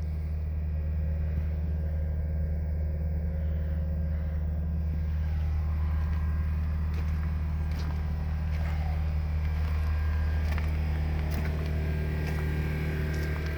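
A steady low mechanical hum from a running motor, unchanging throughout, with a few faint scattered clicks over it.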